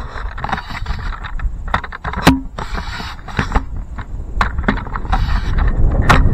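Close rustling and scraping with many sharp clicks, from gear being handled right at the microphone, over a steady low rumble of wind on the microphone.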